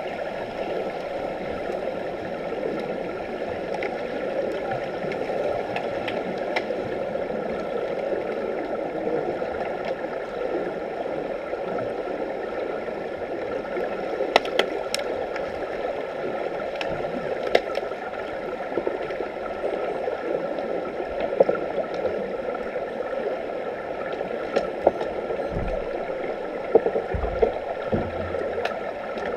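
Underwater pool ambience heard through a submerged camera: a steady rushing water noise with a few faint steady tones. From about halfway on, scattered sharp clicks and knocks come through, with a couple of low thuds near the end.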